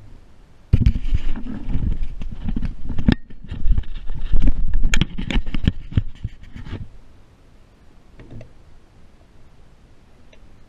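Handling noise from a small camera being moved and set down on a shooting bench: close rubbing, knocks and thumps right on the microphone for about six seconds, stopping about seven seconds in.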